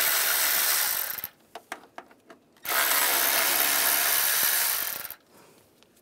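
Cordless power tool spinning a 10 mm socket to back out bracket bolts: two steady runs of about two seconds each, the first ending about a second in and the second starting near the three-second mark, with a few light clicks between.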